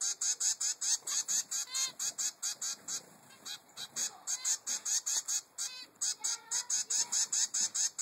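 Three-week-old zebra finch chick begging for food: a rapid, insistent run of short, high-pitched calls, about five a second, with a brief break about three seconds in.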